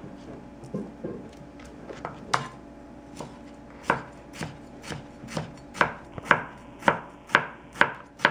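Chef's knife slicing raw chicken breast into thin pieces, the blade knocking on the cutting board with each cut. A few scattered knocks at first, then from about four seconds in a steady run of about two sharp knocks a second.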